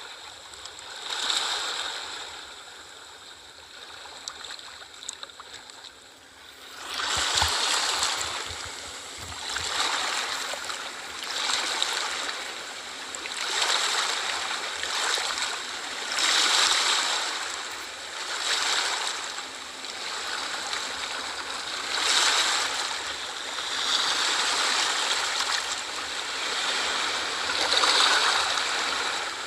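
Ocean waves washing onto a shore, surf swelling and easing every couple of seconds, growing louder about seven seconds in.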